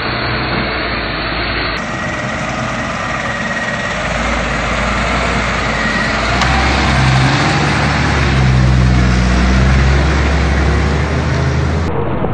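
Coach bus's diesel engine running over a general noise of the vehicle. The low engine drone grows louder from about six seconds in, as the engine works with the rear wheels in deep mud. The sound changes abruptly near the start and again near the end.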